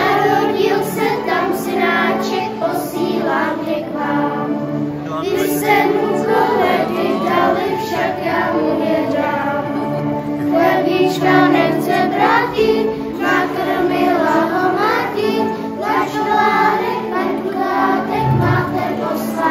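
A choir with children's voices singing a Czech Christmas song over steady held accompaniment notes.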